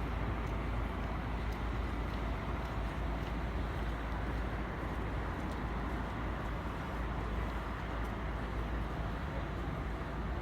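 Steady city street noise: a continuous low rumble of passing traffic, with faint scattered clicks.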